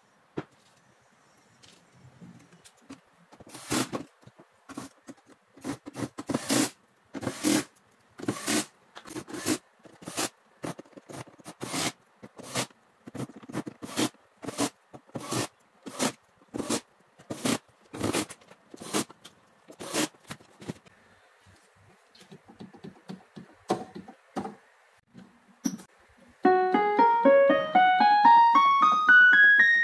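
Sharp clicks at roughly two a second for a long stretch while the keyboard's plastic back panel is worked on with a screwdriver. Near the end, an electronic keyboard plays a quick rising run of single notes, one key after another up the keyboard, testing the repaired keys.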